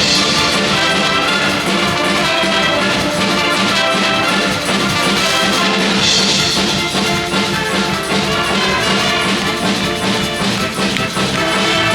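School wind band playing a Eurobeat-style medley of Disney tunes, with brass such as trumpets and trombones over drums keeping a steady beat.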